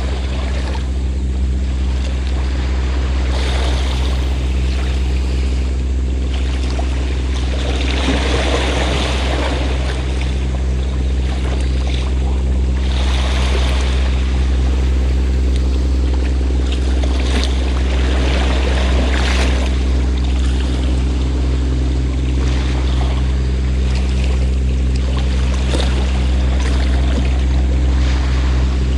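A fishing boat's engine running with a steady low drone, while waves wash onto the shore in repeated swells every few seconds.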